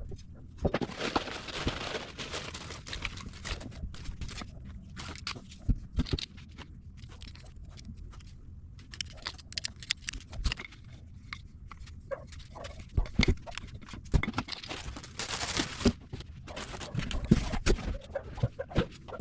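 Packaging and parts being handled: scattered knocks and clicks, with louder rustling near the start and again about three-quarters of the way through.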